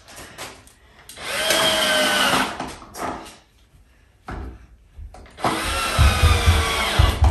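Cordless drill driving screws into a plastic ride-on toy during assembly. It makes two runs, starting about a second in and again about five and a half seconds in, and its whine falls slightly in pitch as each screw tightens. The second run has a low juddering under it.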